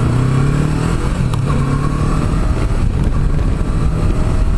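Yamaha YZF-R3 parallel-twin motorcycle engine accelerating away from a stop, heard from the rider's helmet, with heavy wind rumble on a condenser mic that has no windscreen.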